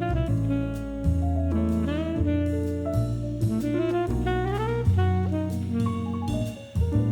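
Background jazz music: a saxophone-like melody over bass and drums.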